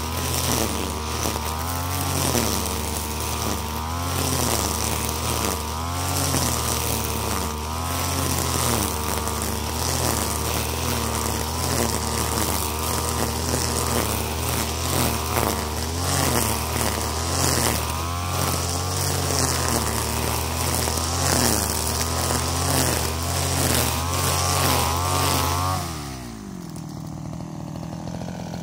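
STIHL FR3001 backpack brushcutter's two-stroke engine running at high revs while its nylon trimmer line cuts grass, the pitch wavering up and down every couple of seconds. Near the end the throttle is released and the engine drops quickly to idle.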